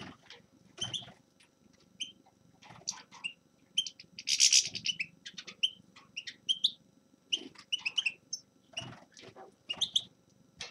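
A finch singing in short chirps and twittering phrases, with a louder, denser burst of song about halfway through.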